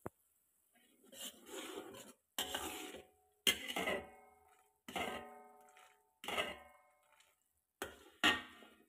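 A metal spoon scraping and knocking around a steel wok in about seven strokes, each a second or so apart. The wok rings briefly after each stroke.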